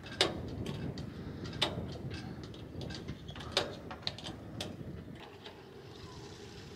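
Pliers clicking and tapping on a metal mast rigging fitting while a clevis pin is worked out: about five sharp, irregular clicks over a steady low rumble.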